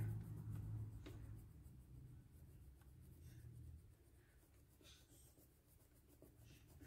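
Faint scratching of a colored pencil on paper as an area of the picture is coloured in, over a low steady hum.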